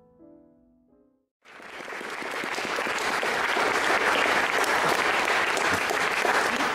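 Soft piano notes dying away, then after a brief silence an audience applauding from about a second and a half in, swelling and then holding steady.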